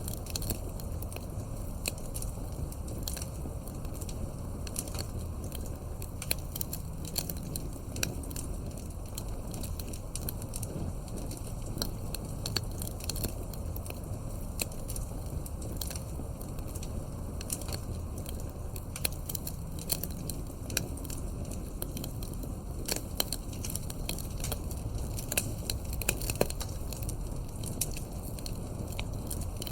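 Wood fire crackling, with frequent sharp irregular pops and snaps over a steady low noise of burning logs.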